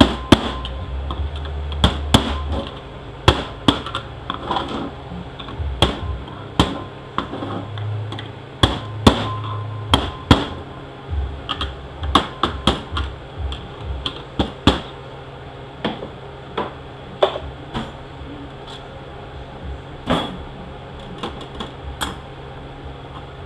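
Hammer striking a screwdriver to drive a part into a 68RFE automatic transmission clutch drum: dozens of sharp taps in irregular runs and pauses, some ringing briefly.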